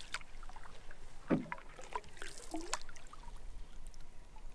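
Canoe paddle strokes in calm water: a couple of dips and pulls of the paddle, with water splashing and dripping off the blade.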